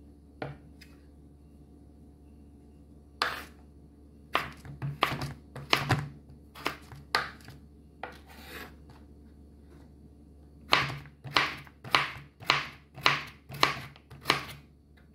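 Kitchen knife chopping through raw pumpkin and knocking on a wooden cutting board, dicing it into small pieces. A few scattered chops come first, then a quick, even run of about eight chops, roughly two a second.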